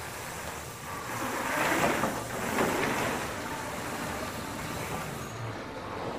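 Mountain bike being ridden along the trail: a steady rushing, rolling noise of tyres and moving air, swelling louder about one and a half to three seconds in.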